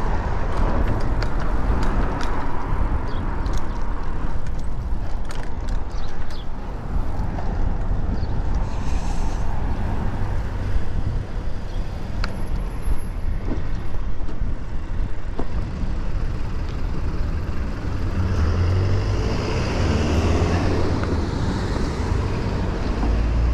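Wind rumbling on a bicycle-mounted GoPro's foam-covered microphone while riding, with road noise and passing traffic; a louder vehicle swells past near the end.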